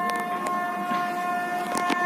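Indian Railways express locomotive's horn held in one long steady blast, two main tones sounding together as a chord, with a few sharp clicks near the end.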